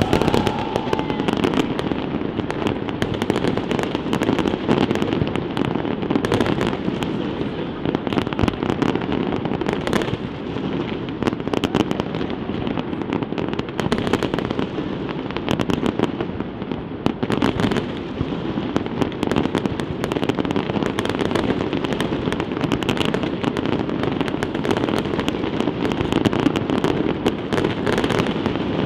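Many fireworks going off at once: a dense, unbroken run of bangs with many sharp reports, steady in loudness throughout.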